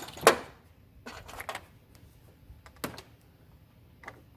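Rubber mallet tapping a battery cable's terminal clamp down onto the negative battery post: about half a dozen separate sharp knocks, the loudest just after the start.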